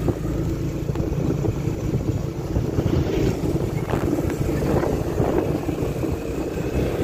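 Motorcycle running along a road, its engine hum mixed with a steady rush of wind over the microphone.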